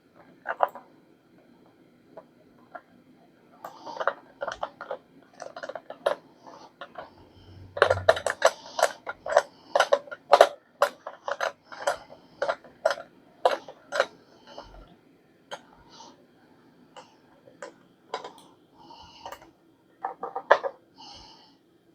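Metal parts of a bike repair stand clinking and knocking as it is assembled by hand: scattered sharp clicks and clanks, thickening into a dense run of them in the middle and another short burst near the end.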